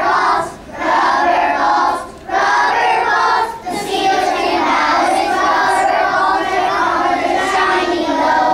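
A group of kindergarten children singing together, with short breaths between phrases about half a second and two seconds in.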